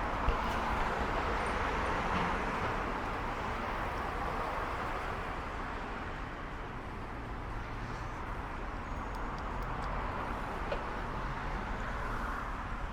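Steady rumbling, hissing travel noise of a vehicle in motion.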